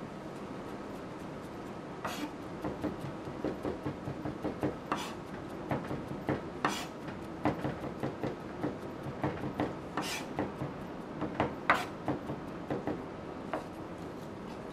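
Chef's knife chopping garlic on a plastic chopping board: irregular quick taps, about three a second, starting about two seconds in and stopping shortly before the end.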